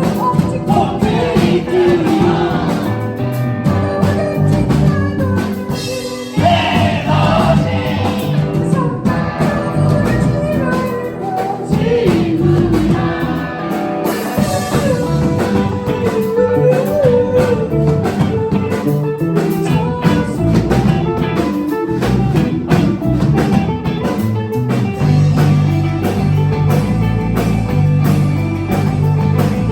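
Indie rock band playing live, with guitar under a sung vocal line and a steady beat.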